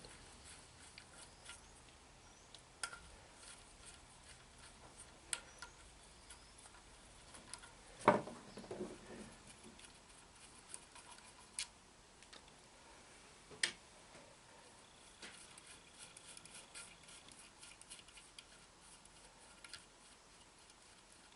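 Faint, scattered clicks and taps of hand tools and small metal parts on a TBI throttle body while the throttle position sensor's screws are taken out. One sharper knock comes about eight seconds in.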